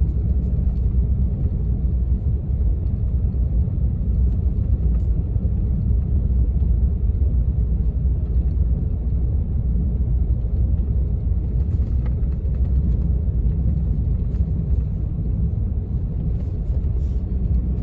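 Steady low rumble of a truck driving, heard from inside the cab.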